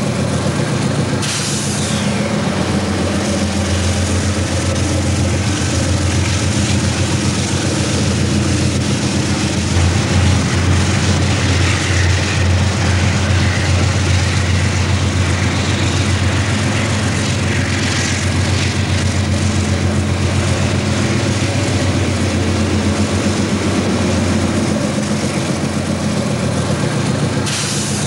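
Diesel locomotive engine running steadily with a low, even drone, with short hisses about a second in and again near the end.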